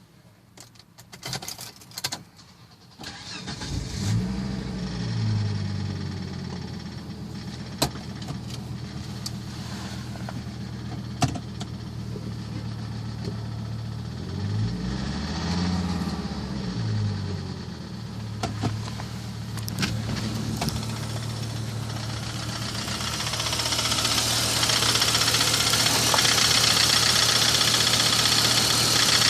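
Volvo S70 T5's turbocharged five-cylinder engine starting after a few clicks, then idling with a knock that the owner takes for rod knock. It is revved once and falls back about halfway through, and near the end it grows louder with a rising hiss.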